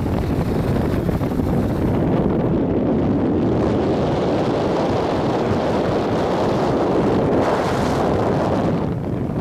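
Wind buffeting the microphone of a camera moving down a ski slope: a steady noise, heaviest in the low end, with a brighter hiss for about a second near the end.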